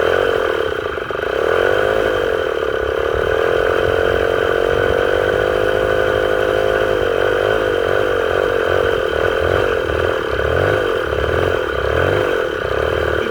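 A vehicle engine running steadily, its revs drifting up and down and wavering unevenly through the second half.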